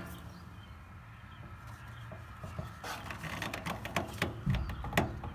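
Faint scraping and light metallic clicks of a screwdriver working at a stuck flathead screw, starting about three seconds in.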